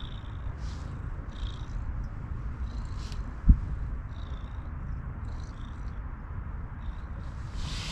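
A domestic cat purring close by, a low continuous rumble, with soft rustles recurring every second or so. One sharp thump comes about three and a half seconds in.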